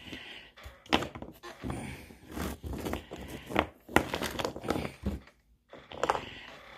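Clothespin pieces handled and set down on a tabletop during assembly: irregular sharp clicks and knocks with rustling between them.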